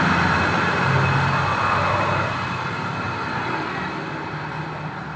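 Suzuki Nex II scooter's CVT, cover off, hand-spun and whirring freely as it slowly winds down. It makes an even "seng" whir with no "krok-krok" knocking, which the mechanic judges a normal sound.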